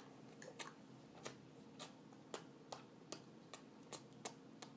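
Faint, quick kissing smacks of lips on a dog's muzzle, repeated about two or three times a second.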